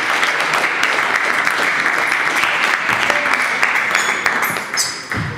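Spectators applauding a table tennis point with dense, steady clapping that fades near the end. A couple of light pings of a table tennis ball bouncing come in over the last second or so.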